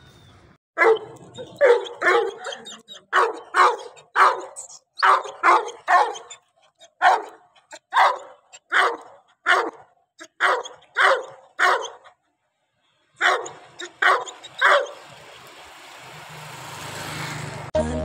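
A dog barking in a steady run, about three barks every two seconds, with a pause of about a second near the twelve-second mark. Near the end a rising hiss takes over.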